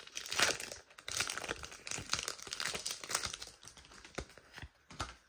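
Foil wrapper of a Pokémon card booster pack crinkling and tearing as it is handled and opened by hand, in a run of irregular rustles.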